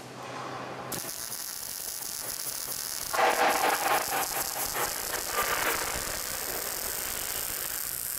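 Wire-feed welder arc welding steel: a steady crackling hiss that starts about a second in, growing louder and denser for a few seconds in the middle.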